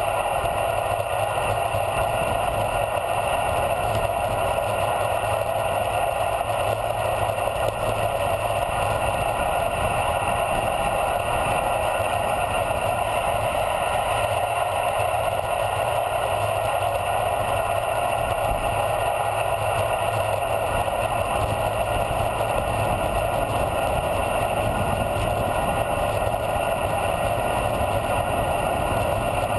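Steady rush of wind and tyre noise from a road bicycle coasting downhill at speed, heard through a handlebar-mounted camera, with no change in pitch or level.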